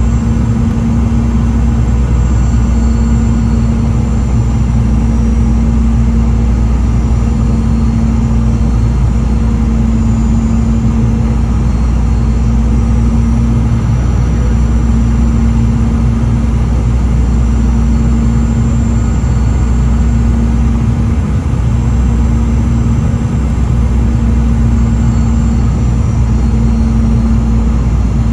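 Cabin noise of a Boeing 717-200 on approach with flaps extended: a steady low drone of its rear-mounted Rolls-Royce BR715 turbofans and rushing air, heard inside the cabin, with a steady hum tone running through it.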